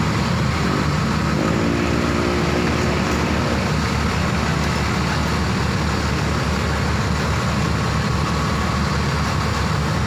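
Large bus engine running steadily, a deep rumble, with a short rise in engine pitch about a second in.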